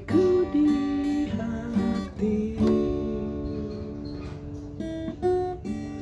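Instrumental break of a slow ballad on acoustic guitar, with sustained melody notes over strummed chords and no vocal. It gets gradually quieter over the second half.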